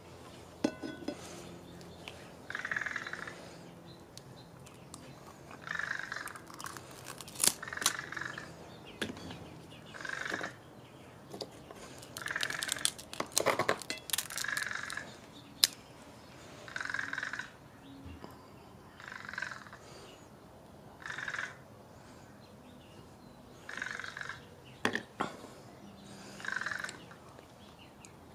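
A bird calling over and over, one short harsh call every second or two, with a few sharp cracks of crab shell broken by hand, the loudest about halfway through.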